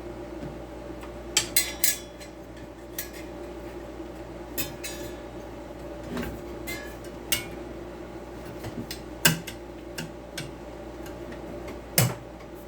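Light metal clinks and clicks, a dozen or so separate knocks with a short ring, from handling a circular saw blade and fitting it onto the saw. A faint steady hum runs underneath.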